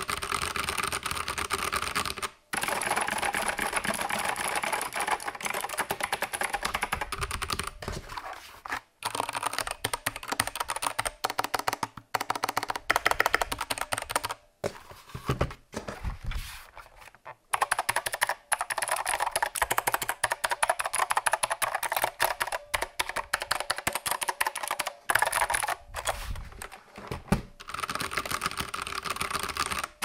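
Fast typing on a Keychron C2 mechanical keyboard with tactile brown switches. After a pause with a few knocks as the other keyboard is moved, typing resumes on an Ajazz AK510 retro mechanical keyboard with clicky blue switches.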